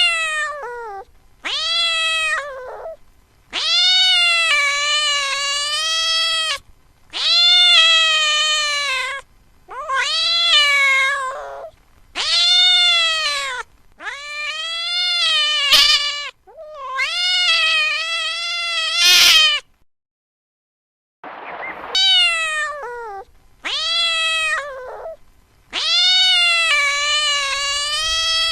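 Domestic cat meowing over and over: long drawn-out meows, one after another, each trailing down in pitch at the end, with a brief silence about two-thirds of the way through.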